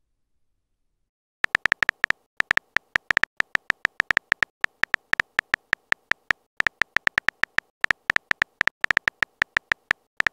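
Keystroke sound effect of a texting-story app's on-screen keyboard: rapid, uneven clicks, about five or six a second, as a message is typed letter by letter, starting about a second and a half in.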